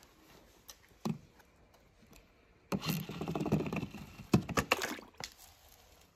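A small toy monster truck set down with a knock, then running down a track of wooden popsicle sticks with a rattling clatter for about two seconds, ending in a few sharp knocks as it tumbles off the end into a plastic tub of water.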